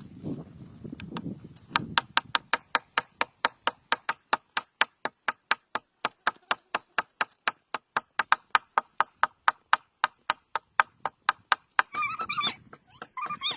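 Rapid, even knocking, sharp strikes at about four a second, such as a blade or tool chopping or tapping steadily on a hard surface; it stops near the end, where two short high calls follow.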